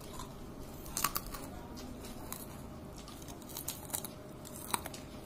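Close-up eating sounds: a handful of short, sharp clicks and crackles from food being torn, chewed and handled, spread irregularly over a low steady background noise.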